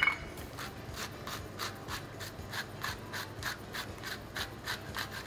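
Hand salt mill being twisted to grind salt, a rhythmic scratchy grinding at about four strokes a second, after a brief clink at the very start.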